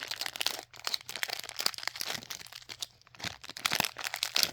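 A sealed mystery pin pack being torn open and handled, with crinkling and tearing, loudest near the end.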